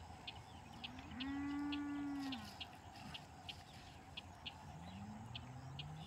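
Cattle mooing: one long, level call about a second in that drops in pitch as it ends, then a fainter, lower call rising near the end.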